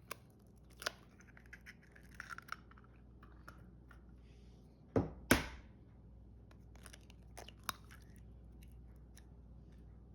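Eggs being cracked against a bowl: a few sharp cracks with light crunching of shell between them, the loudest pair about five seconds in.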